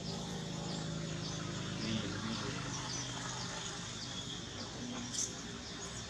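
Outdoor ambience: short, high, falling chirps repeat irregularly about every half second over a low steady hum, with one sharp click about five seconds in.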